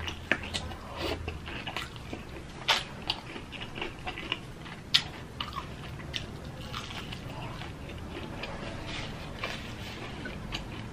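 Biting and chewing crispy breaded fried chicken, with many sharp crunches of the coating; two louder crunches come about three and five seconds in.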